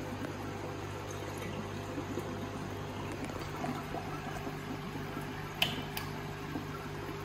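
Water trickling and splashing through an aquarium's trickle filter, running from a perforated PVC pipe manifold onto filter wool and down through the bio-media, over a steady low hum. A single sharp click a little past halfway.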